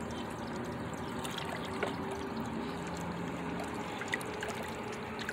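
Lake water lapping and trickling close by: a steady wash of small ripples with many little splashes and drips.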